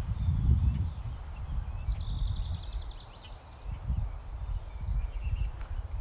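A songbird singing two quick, high trilled phrases, one about two seconds in and another about four seconds in, over a low rumble that is loudest in the first second.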